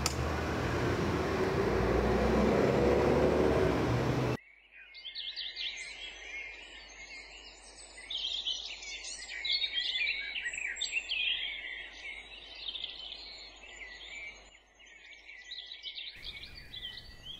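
A steady rumble of street noise for about four seconds, which cuts off abruptly. After it, many small birds chirp and sing over faint background noise.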